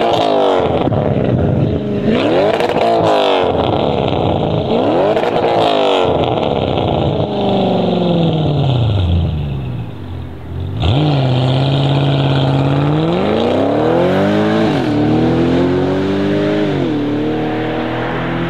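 High-performance car engine revved in three quick blips, then its revs sink away over several seconds. About halfway an engine pulls away under load, its pitch climbing with two gear changes.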